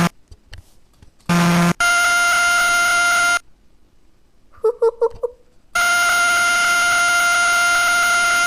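Harsh, steady electronic buzzing tones, like an alarm, from a converted space-sound recording played back. A short low buzz comes at the start, a higher buzz runs for about a second and a half from about two seconds in, a few short warbling blips sound around five seconds, and then a continuous high buzz starts near six seconds.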